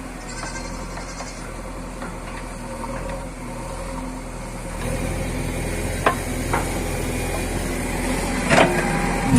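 JCB 3DX backhoe loader's diesel engine running steadily, a little louder after about five seconds, with a few short sharp knocks about six seconds in and again near the end.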